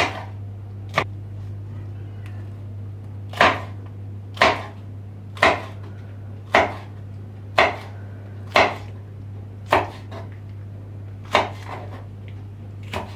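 Kitchen knife slicing a green pepper into rings on a wooden cutting board: sharp knocks of the blade on the board, about eleven, roughly one a second, with a two-second pause after the second one. A steady low hum runs underneath.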